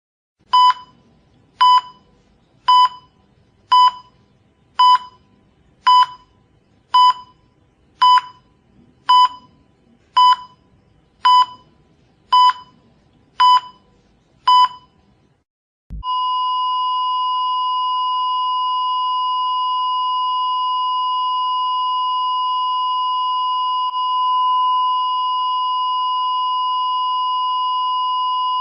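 Hospital heart monitor beeping fourteen times, about once a second, then going into one continuous steady tone about sixteen seconds in: the flatline that signals the heart has stopped.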